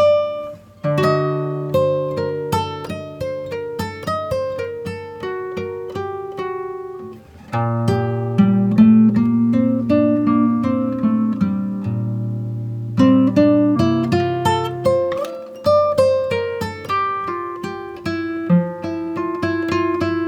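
Background music: acoustic guitar played in picked notes over sustained bass notes.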